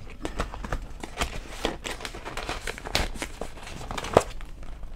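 Plastic binder pockets and pages crinkling and rustling as they are turned and handled in a disc-bound cash binder, with a few sharp clicks, the sharpest about four seconds in.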